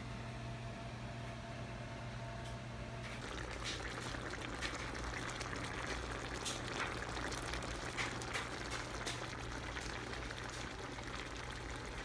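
Food cooking in a skillet, bubbling and sizzling with many small crackles that set in about three seconds in, over a steady low hum.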